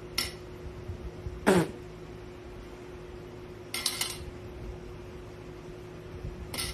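Metal rings dropped onto a table, clinking in short bursts just after the start, about four seconds in and near the end. A single loud sound falling quickly in pitch comes about a second and a half in.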